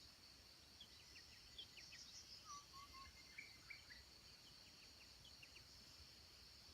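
Faint natural ambience: a steady high insect drone, with scattered short bird chirps and whistles through the middle.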